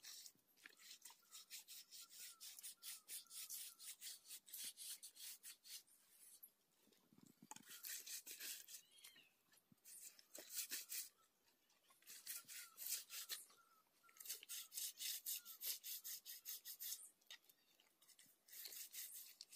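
Faint sound of a paintbrush scrubbing white paint onto a rough concrete pillar. The quick back-and-forth strokes come in runs of a couple of seconds, with short pauses between runs.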